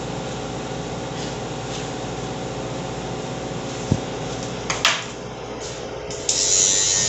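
Steady background hum with a couple of short clicks, then about six seconds in a cordless electric hair trimmer switches on and buzzes steadily.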